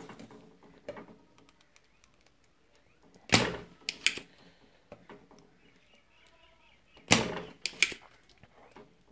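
Spring-loaded solder sucker (desoldering pump) firing twice, about four seconds apart: each a sharp snap with a lighter click a moment after it, as molten solder is sucked off the pins of the circuit-board push-button switches being removed.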